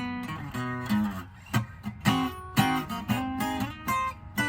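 Guitar strumming chords in a steady rhythm, with no singing.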